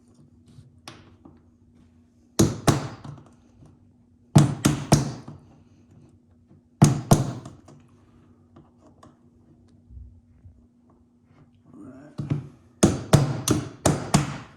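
Hammer tapping a nail used as a punch to drive a stuck stopper pin out of a plastic Ridgid toolbox: sharp taps in short groups of two to four with pauses between, then a quicker run of about six taps near the end.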